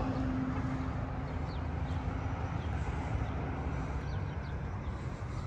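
Vehicle noise: a steady low rumble with a hum that fades out about two seconds in, and a few short, faint bird chirps.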